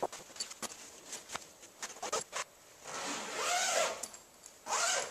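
Vinyl fabric cover of a tent-style 3D-printer enclosure rustling and ticking lightly as it is pulled over its pipe frame, then a zipper pulled in one long rasp about three seconds in and a shorter one near the end.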